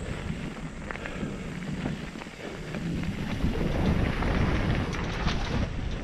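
Wind buffeting the microphone over the rumble and rattle of a mountain bike riding down a rocky trail, with a run of small clicks and knocks from the tyres and frame.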